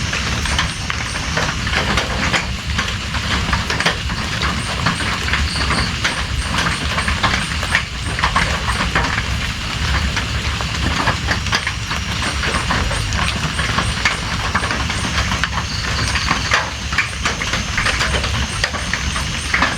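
Steady rain falling, a dense patter of many individual drops striking over a low rumble.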